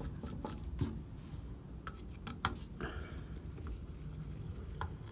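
Small clicks and taps of metal parts being handled and fitted while a car door handle is reassembled by hand, a few sharp clicks a second or so apart over a low steady rumble.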